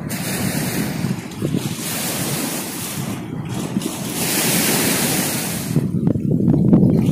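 Wind rumbling on the microphone over the wash of sea waves, a loud, even noise with a hiss that cuts out briefly twice.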